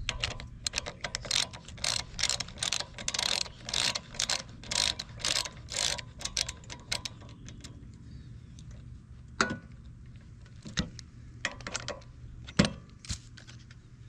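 Hand socket ratchet clicking as it backs out the long bolts holding a lawn mower's air filter box. The clicks come in quick runs, one run per back-swing, for the first seven seconds or so, then a few separate sharper clicks in the second half.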